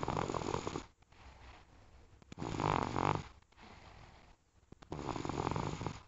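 Snoring: three loud snores, each just under a second long and about two and a half seconds apart, with quieter breathing between them.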